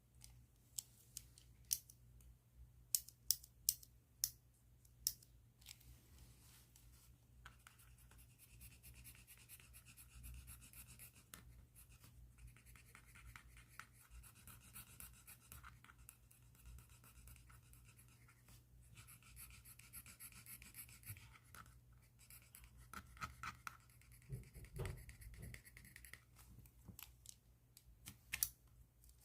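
Pen tip scratching across paper in steady writing or colouring strokes, faint. A handful of sharp clicks come in the first few seconds before the scratching settles in.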